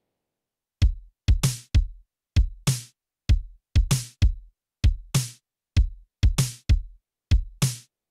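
Dry, unprocessed drum-machine loop of kick and snare samples with no reverb: short, punchy kicks and brighter snare hits that die away quickly. It starts about a second in.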